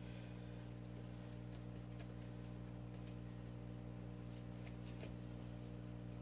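Steady low electric hum of an aquarium air pump driving a sponge filter, with a few faint light ticks scattered through it.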